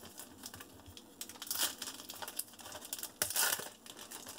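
Foil wrapper of a trading-card pack crinkling and tearing as it is pulled open by hand, with two louder spells of crackling about a second and a half and about three seconds in.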